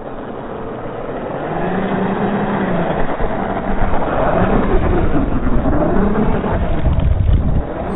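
A vehicle's motor revving, its pitch rising and falling several times over a rough noisy hiss, getting louder over the first few seconds.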